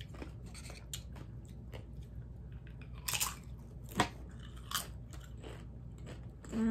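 Tortilla chips crunching as they are bitten and chewed, with a few sharp crunches in the second half and a brief voiced sound near the end.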